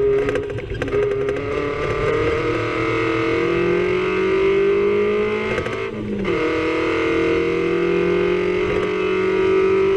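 Suzuki Samurai rally car's engine heard from inside the cabin, pulling up through the revs under acceleration. About six seconds in the pitch drops sharply for a gear change, then climbs again.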